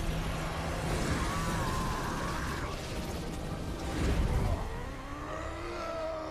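Film battle soundtrack: a dense low rumble of combat effects with whooshes and a heavy boom about four seconds in, under drawn-out tones that rise and fall from the score or voices.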